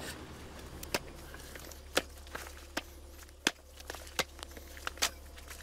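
Sharp, separate knocks on stone and loose rock, roughly one a second at uneven spacing, over a low steady hum.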